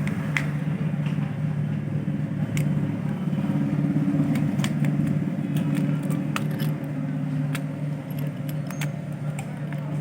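Scattered small, sharp clicks and ticks of tools prying open a mobile phone's casing, over a steady low hum.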